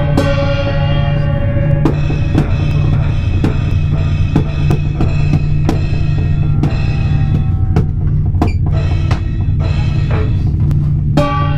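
Loud live experimental noise music: a heavy low drone under sustained pitched tones, struck through by sharp drum-like hits every half second to a second. The pitched tones thin out past the middle and come back in strongly near the end.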